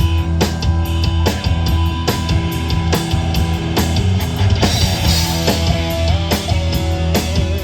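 Rock band playing: electric guitar, bass and drum kit with a steady beat, and a wavering melody line coming in about halfway through.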